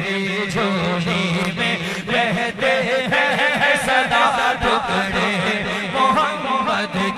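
A male naat reciter singing a devotional Urdu naat in a melismatic, chant-like style over a steady held drone.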